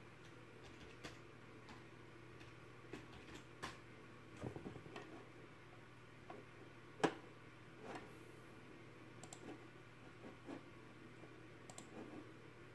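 Faint, scattered clicks of computer keyboard keys and a mouse as words are typed and looked up, irregularly spaced, with a brief cluster around four to five seconds in and the loudest single click about seven seconds in, over a faint steady low hum.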